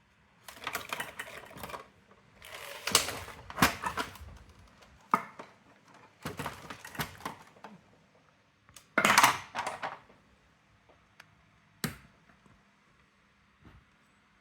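Brother AX-425 electronic typewriter's mechanism clicking and rattling in irregular bursts of sharp plastic-and-metal clicks, loudest about nine seconds in, with a single sharp click near the end.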